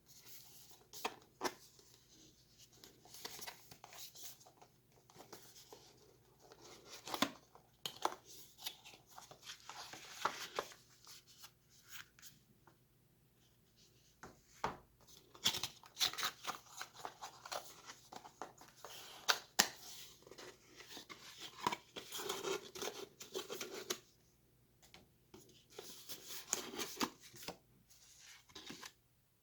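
Packaging being opened and handled: irregular tearing and rustling with sharp clicks and scrapes, in bursts with short pauses.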